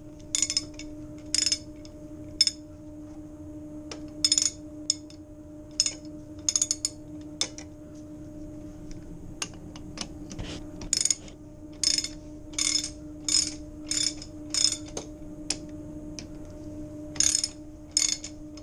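Socket ratchet wrench clicking as the nuts on a grooved pipe coupling are tightened down, in repeated strokes with a short pause about halfway. A steady low hum runs underneath.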